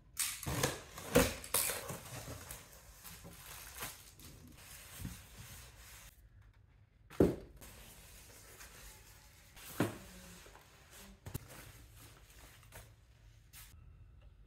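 Cardboard box being cut open and unpacked: slitting, tearing and rustling of tape and cardboard with sharp knocks for the first six seconds. After a short pause, foam packing and plastic wrapping are handled, with a loud knock about seven seconds in and a few smaller knocks later.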